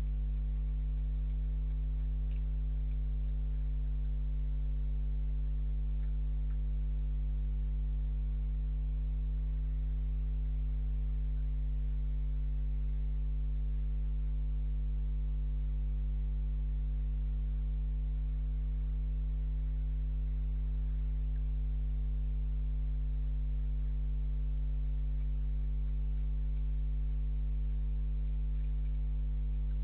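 Steady, unchanging electrical hum made of a low tone with several higher tones stacked over it, the kind of hum a security camera's audio carries. A few very faint ticks sit on top of it.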